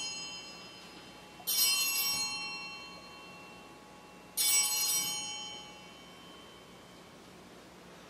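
Altar bells rung at the elevation of the host during the consecration. A ring already fading at the start is followed by two more, about a second and a half and about four and a half seconds in, each one dying away over a couple of seconds.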